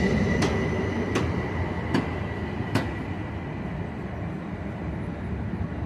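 Interurban train rolling along its rails: a steady rumble that gradually fades, with about four sharp clacks in the first three seconds and a faint, thin, high steady squeal from the wheels.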